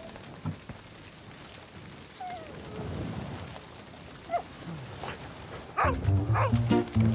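A dog whines in short pitch-sliding yips several times over a steady patter of rain. Near the end, music with low repeated notes begins.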